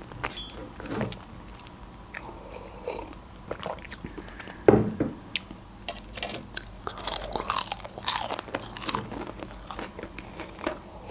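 Close-up mouth sounds of chewing a crispy fried pastry: wet chewing with scattered sharp crunches, the loudest a little under five seconds in and a dense run of crunching a couple of seconds later.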